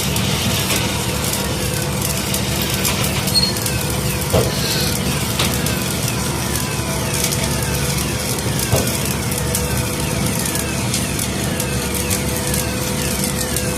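Steady crackling and sizzling of a shielded metal (stick) electric arc welding arc, over a steady hum. A faint falling sweep repeats roughly twice a second, and a few sharper cracks stand out.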